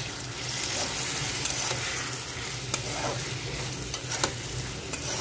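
Potatoes frying in masala in a steel kadai, sizzling steadily as a metal spatula stirs them, with a few sharp scrapes and clicks of the spatula against the pan.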